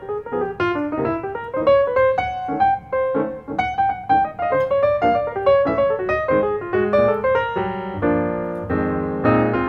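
Background piano music: a light melody of single notes, with fuller chords near the end.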